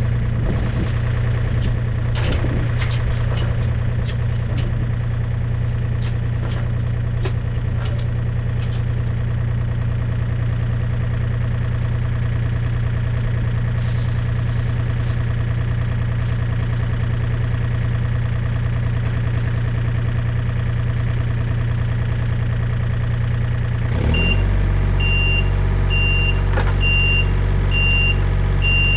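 John Deere 35D mini excavator's diesel engine running steadily, with scattered sharp metallic clicks in the first several seconds. About 24 seconds in the engine note changes and a high alarm starts beeping, about one and a half beeps a second.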